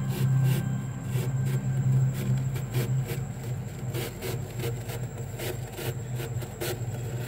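Bare fingers scraping soft, flaky freezer frost off the freezer wall and crunching it into a handful, in many quick, irregular strokes over a low steady hum.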